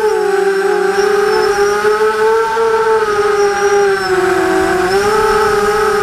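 Vortex FPV quadcopter's brushless motors and propellers whining in a hover, the pitch wavering with small throttle corrections and dipping briefly about four seconds in.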